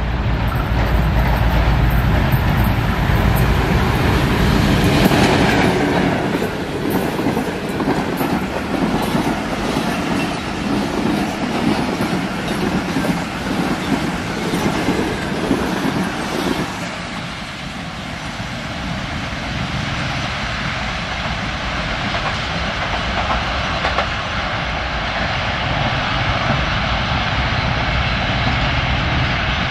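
Diesel-hauled passenger express passing at speed: the locomotive's engine first, then the coaches' wheels clattering over the rail joints for about ten seconds. The clatter cuts off suddenly as the last coach goes by, leaving the quieter sound of the train running away into the distance.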